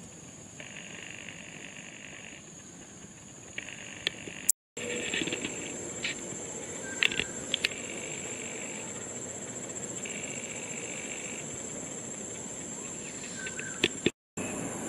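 Tropical insect chorus: a steady high-pitched drone, with a second group of insects buzzing in swells of a second or two. There are a few sharp clicks, and the sound cuts out briefly twice.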